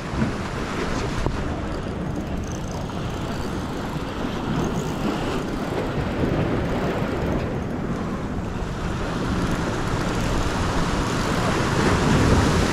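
Wind buffeting the microphone over sea waves washing against shore rocks, a steady rumbling rush that swells slightly near the end.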